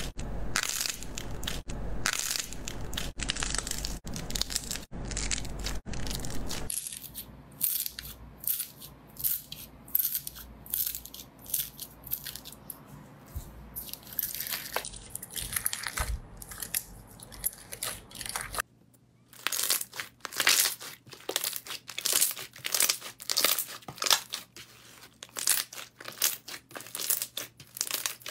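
Hands squeezing and kneading slime, a steady run of wet crackles, clicks and pops. The sound changes twice. About seven seconds in, foam-bead slime starts crunching with softer, scattered clicks. About two-thirds through, clear slime being pressed gives a quick string of sharp pops.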